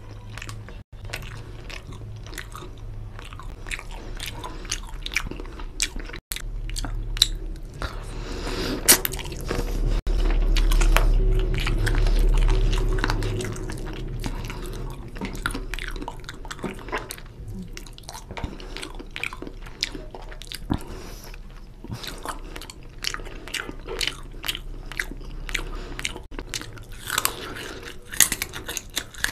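Close-miked chewing of chicken drumstick curry and rice eaten by hand: many quick, irregular mouth clicks and smacks, with a louder, deeper stretch a few seconds long near the middle.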